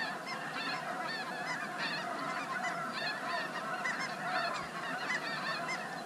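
A flock of snow geese calling: a dense, unbroken chorus of many short, high honks overlapping one another.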